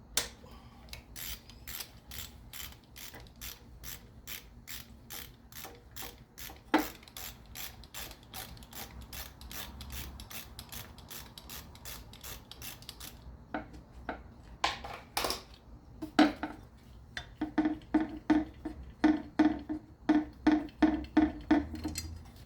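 Hand ratchet wrench clicking as a 12mm bolt is backed out of an engine's belt tensioner, a steady run of clicks about three a second. After a short pause, louder and more uneven clicks return in the second half.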